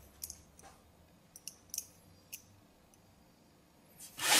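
Several faint, sharp clicks scattered over the first two and a half seconds, then a loud rushing noise that starts near the end.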